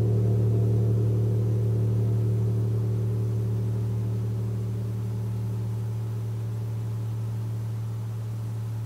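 A gong ringing on with a deep steady hum and wavering overtones above it, slowly fading, with no new strike.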